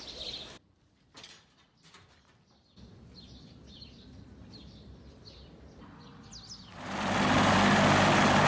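Birds chirping faintly. About seven seconds in, a loud, steady helicopter engine-and-rotor noise takes over.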